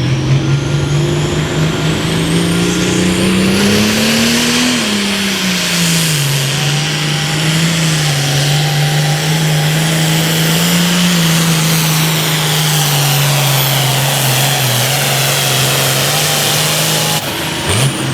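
Super Farm class pulling tractor's turbocharged diesel engine working hard under load on a sled pull: it revs up with a rising turbo whine over the first few seconds, drops back slightly, then holds a steady pitch until it breaks off abruptly near the end. A reversing beeper beeps steadily during the first couple of seconds.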